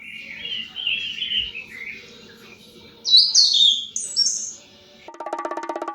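Small birds chirping in quick runs of short calls, with a few louder, higher calls from about three seconds in. Near the end, music with a steady ticking beat comes in.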